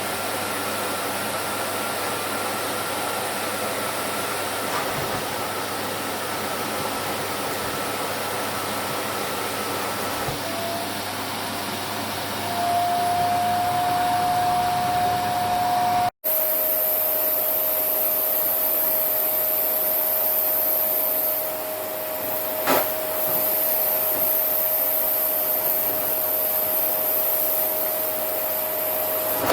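Vacuum cleaner running steadily while it sucks on a down jacket. About ten seconds in, a whine rises in pitch and then holds. Halfway through the sound breaks off for an instant, then the steady whine and hiss carry on, with a single click a few seconds later.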